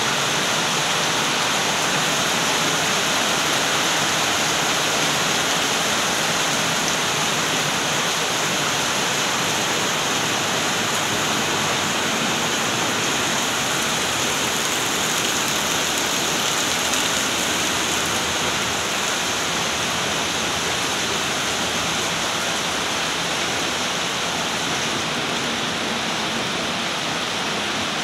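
Heavy cyclone rain pouring down in a steady, unbroken hiss.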